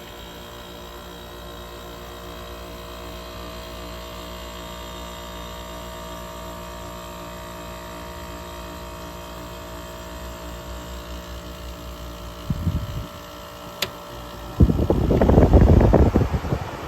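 Rotorex rotary compressor of a 1994 Fedders-built 10,000 BTU window air conditioner running on its own with the fan switched off: a steady hum. A sharp click comes near the end, followed by a loud rush of noise.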